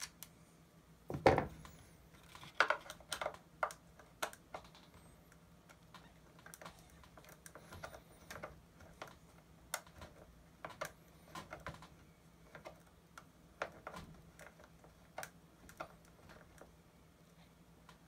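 Irregular small clicks and taps of hands working the speaker's mounting hardware (screws, washers, nuts) on a car door panel, with one louder knock about a second in.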